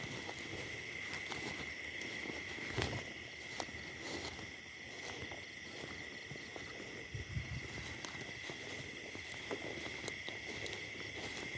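Steady chirring of night insects, held at one pitch without a break, with footsteps and rustling through grass and a few light clicks.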